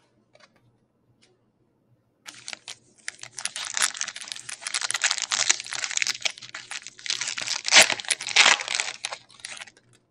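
Foil wrapper of a football trading-card pack being torn open and crinkled. A dense crackling starts about two seconds in and stops just before the end.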